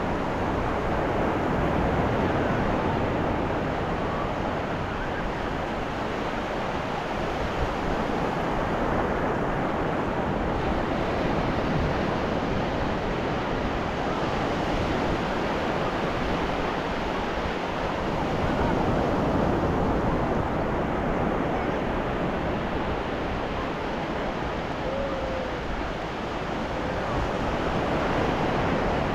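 Ocean surf washing onto a beach: a continuous rush of breaking waves that swells and eases slowly, louder about two seconds in, again around twenty seconds in, and near the end.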